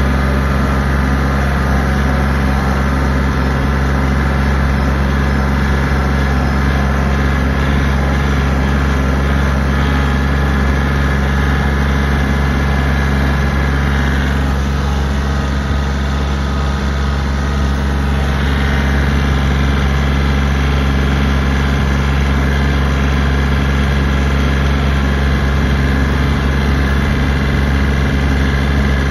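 Kioti compact tractor's diesel engine running at a steady speed as the tractor drives along, heard from the operator's seat.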